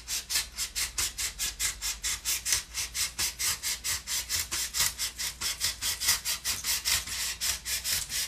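Long thin X-Acto knife blade sawing back and forth through a 3/4-inch polystyrene foam sheet. It makes a fast, even, scratchy rasp of about five or six strokes a second.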